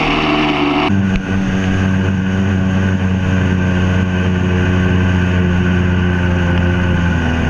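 Two-stroke Sea-Doo jet ski engine running at a steady speed under load, with the hiss of water spray and wind. About a second in, the sound changes abruptly to a steadier, lower engine drone with less spray hiss.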